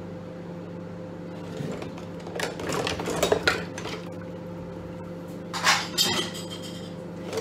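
Dishes and cutlery clattering at the kitchen sink in a couple of short bursts, about two and a half seconds in and again near six seconds, over a steady low hum.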